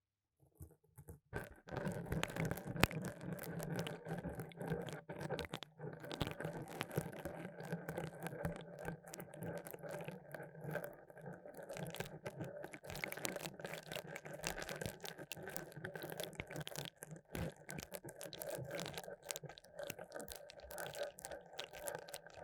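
Fuzzy pipe cleaners (chenille stems) rubbed and scratched against a microphone's ear in ASMR ear-cleaning, a dense crackling scratch that starts about a second in.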